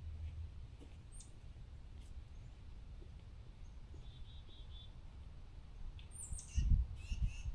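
Quiet woodland ambience with faint bird calls: a short run of four quick high chirps about four seconds in and another call near six seconds. A few low thumps follow near the end.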